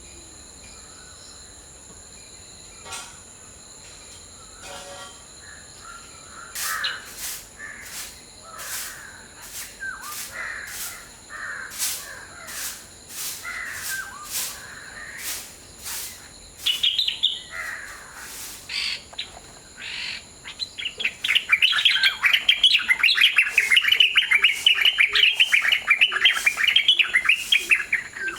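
White-browed bulbuls calling: a string of short, harsh calls about once a second, then, from about two-thirds of the way in, a loud fast burst of chattering notes. Steady high-pitched insect tones run underneath.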